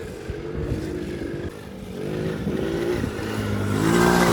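Small engine of a youth four-wheeler (ATV) revving on and off as it is ridden. The pitch steps up and down, and it gets louder near the end as it comes close.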